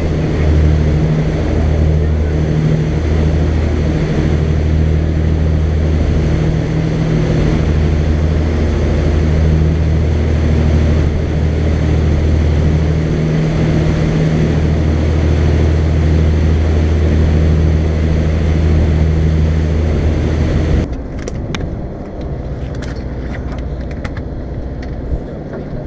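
Charter fishing boat under way: its engine drones steadily with a low hum over the rush of the churning wake. About 21 seconds in, this cuts to a quieter, thinner rumble on deck with a few sharp clicks.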